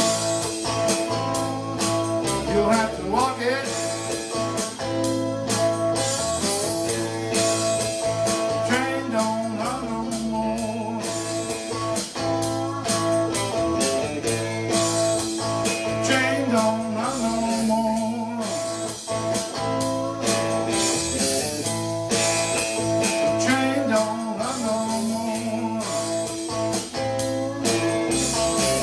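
Blues-rock instrumental passage: an electric guitar plays a lead with bent notes over a recorded backing track that has a steady beat and sustained chords.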